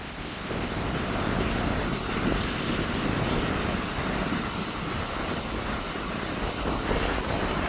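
Strong gusting wind rushing, picking up about half a second in and staying loud and steady.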